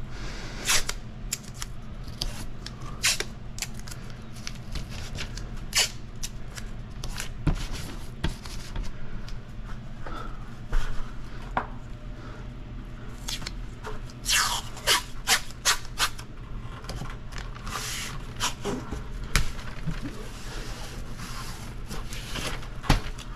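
Masking plastic and masking tape being worked by hand: irregular short rustles, scrapes and rips, some lasting about half a second, over a steady low hum.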